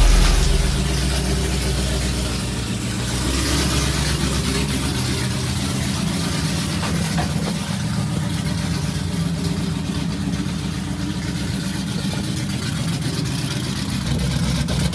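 Dodge Challenger Hellcat's V8 engine running steadily at low revs as the car creeps along at walking pace.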